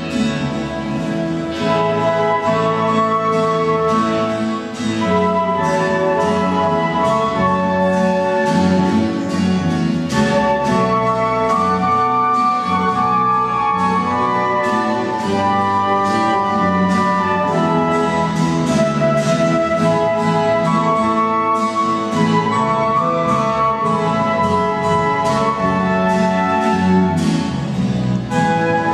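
Instrumental passage of a church song: three transverse flutes playing a held, stepwise melody in unison over a lower accompaniment.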